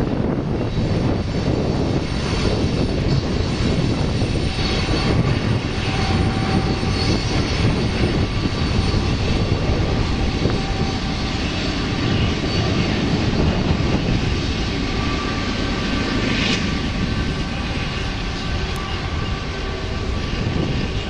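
Freight train rolling through the junction: a steady, loud rumble of the cars on the rails, with faint steady tones over it.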